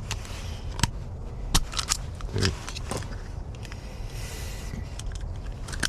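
Keys and small metal lock parts being handled while a Kwikset doorknob is rekeyed: a scattering of sharp metallic clicks, with a brief scrape a little past the middle.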